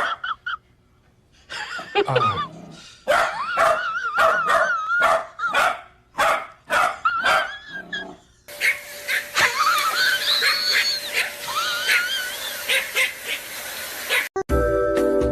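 A dog barking and yipping in quick runs of short barks, with high wavering whines between them. Music starts near the end.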